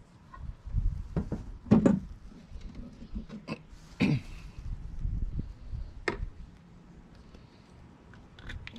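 Handling noises as the engine cowling of an outboard motor is lifted off and set down: a few short knocks and clunks, the loudest about four seconds in, a sharp click about two seconds later, over a low rumble.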